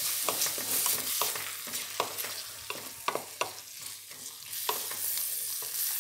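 Grated bottle gourd and onion frying in oil in a steel kadhai, sizzling, while a wooden spatula stirs it, knocking and scraping against the pan in quick repeated strokes.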